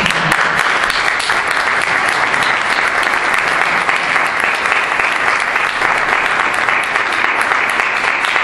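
Audience applauding, many hands clapping at a steady, even level throughout.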